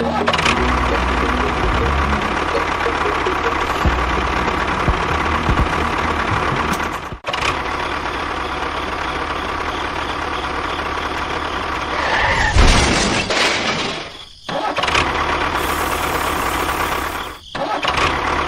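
A small motor running steadily, broken by abrupt cuts about 7 and 14 seconds in and again near the end.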